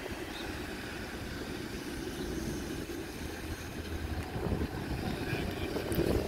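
Steady outdoor background noise: a low rumble with a light hiss over it and no distinct events.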